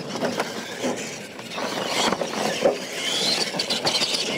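RC monster trucks racing on a dirt track: the whine of their electric motors and gearboxes with tyre and chassis noise on the dirt, one whine rising about three seconds in.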